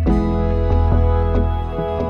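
Instrumental background music: sustained notes over a deep bass, with a steady pulse of struck notes about three a second.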